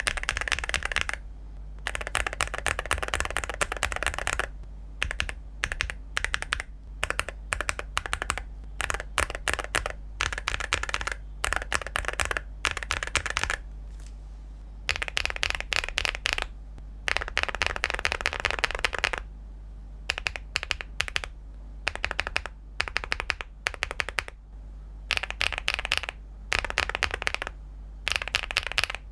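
Typing on a mechanical keyboard fitted with Cerakey V2 ceramic keycaps: runs of rapid key clicks a few seconds long, broken by short pauses, over a steady low hum.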